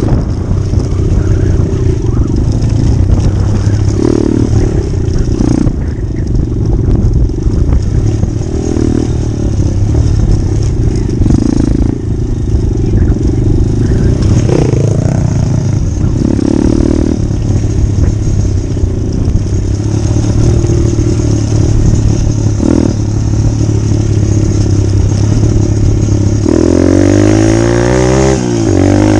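Pit bike engine running under the rider, its note shifting with the throttle over a rough dirt track, then revving up and down several times near the end.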